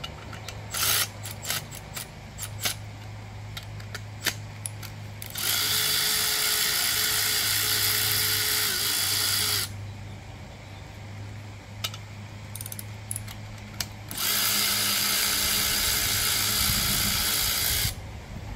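Cordless electric ratchet running in two steady spells of about four seconds each, spinning cylinder-head bolts out of a 5.7 Hemi V8. Sharp metallic clicks and clinks of tool and bolts come before the first run and between the two.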